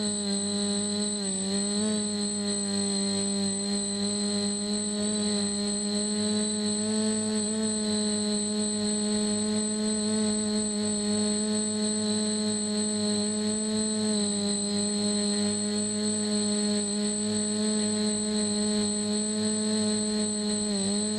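DJI F450 quadcopter's motors and propellers humming steadily, heard up close from the camera mounted on the frame, with a steady high whine above. The pitch dips and recovers briefly with throttle changes about two seconds in, around fourteen seconds and near the end.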